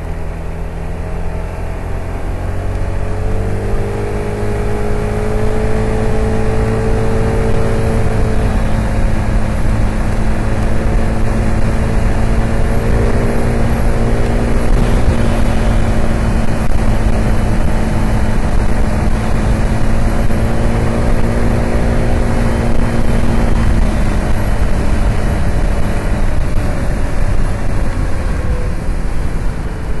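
Piaggio BV 350 scooter's single-cylinder engine, heard from on board, accelerating onto the highway over the first few seconds and then running steadily at cruising speed under heavy wind and road noise. The engine note eases off near the end as the throttle is backed off.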